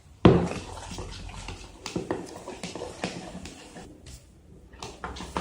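Homemade slime mixture of glue, paint and lotion being stirred in a container, with irregular scraping and clicking of the utensil and a sharp knock just after the start.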